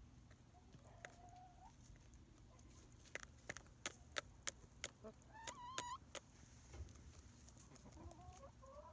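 Pullets (young laying hens) clucking softly, with a few short calls about a second in, in the middle and near the end, over a scatter of sharp ticks.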